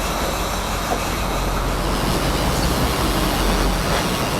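Steady engine rumble and rushing water noise of a charter fishing boat under way offshore.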